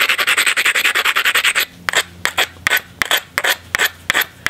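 Abrading stone rubbed back and forth along the edge of a chunk of cherty mudstone: a fast run of rasping strokes for about a second and a half, then slower, separate strokes. This grinds the edge of the stone to strengthen a striking platform before a flake is struck.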